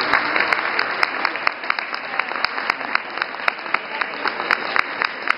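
Audience applauding, with single sharp claps standing out and the clapping thinning slightly toward the end.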